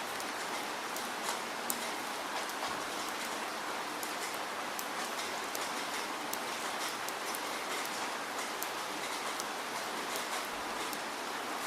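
Steady rainfall, an even hiss dotted with the sharp ticks of single drops hitting a surface.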